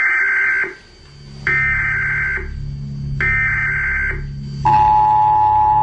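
Emergency Alert System tones: three short data bursts of the SAME header, then the steady two-tone attention signal starting about four and a half seconds in, over a low hum.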